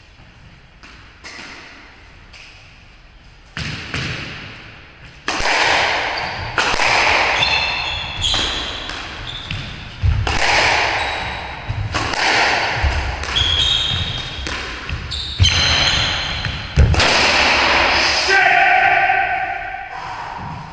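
A squash rally on a wooden-floored court: the hard rubber ball cracks off rackets and slaps off the walls, sharp echoing hits roughly every second or two, starting a few seconds in. Short high squeaks of court shoes on the wooden floor come between the hits.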